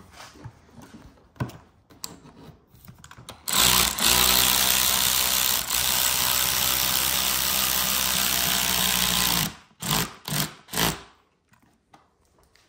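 A handheld electric power tool runs steadily for about six seconds with a motor hum, then is triggered in three short bursts. Light knocks and handling sounds come before it.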